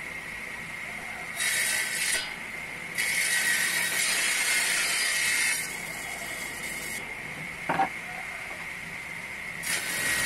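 Sliding table saw running with a steady high whine, its circular blade cutting through a pine board in three passes: a short cut after about a second and a half, a longer one of about two and a half seconds soon after, and a third starting near the end. A brief knock comes between the second and third cuts.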